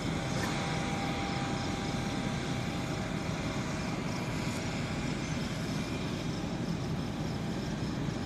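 Harvest machinery engine running steadily, a constant drone with no changes.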